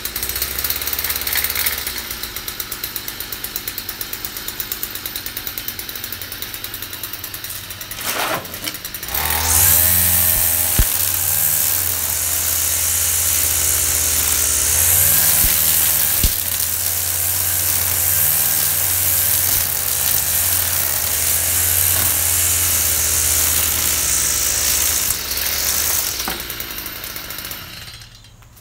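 A power tool running. For the first nine seconds or so it makes a fast, rapid rattle of pulses. It then changes to a louder steady motor sound with a low hum and hiss, which stops shortly before the end.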